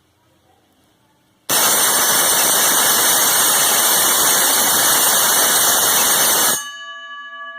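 The alarm output of the Alarm Master automatic school timer goes off as the first programmed alarm triggers on schedule. It sounds loud and harsh for about five seconds, matching its set 5-second duration, then cuts off suddenly and leaves a fainter steady ringing tone.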